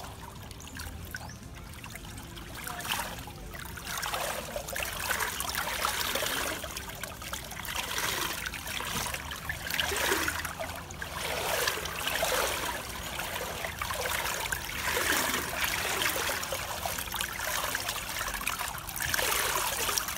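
Swimming pool water trickling and lapping over the tiled edge into a pebble-filled overflow gutter, swelling and easing in uneven surges every second or two.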